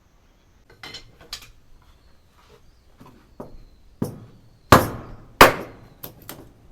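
A run of sharp, irregular knocks and clacks of hard pieces of firewood striking one another, each with a short ringing tail; the loudest three come close together about four to five and a half seconds in.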